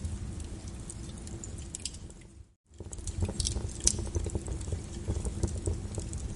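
Wood fire crackling and popping over a low rumble of flames, with irregular sharp snaps. About two and a half seconds in, the sound fades out to a brief silence, then returns.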